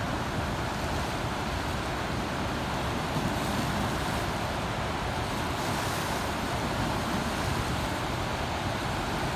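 Steady rush of high flood water pouring through the Cordell Hull Dam spillway gates and churning in the turbulent river below.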